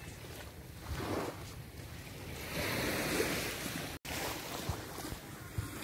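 Sea waves washing in and out, swelling in surges, with wind buffeting the microphone. The sound cuts out for an instant about four seconds in.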